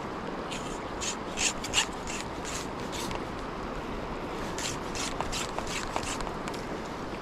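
Steady rush of a mountain river's flowing water, with a run of short scraping, rubbing noises over it, the loudest about one and a half seconds in.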